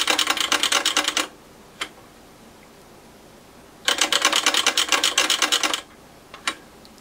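Rotary decade switch of a Keithley 260 nanovolt source spun rapidly back and forth, giving two fast runs of detent clicks with a single click after each. Working the switch like this wipes its dirty contacts clean.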